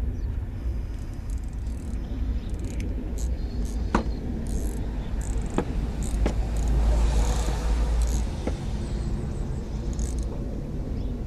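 A few sharp clicks and knocks as the coolant drain plug is done up by hand, over a steady low rumble that swells about seven seconds in.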